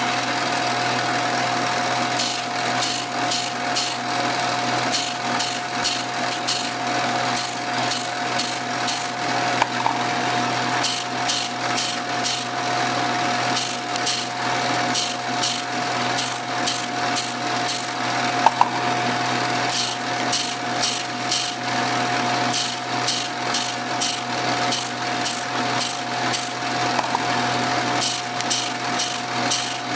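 Shopsmith running as a drum sander, a steady motor hum with a constant whine, overlaid by repeated short rasping bursts, about two a second in runs with brief pauses, as the edges of small wooden cubes are pressed against the sanding drum to bevel them.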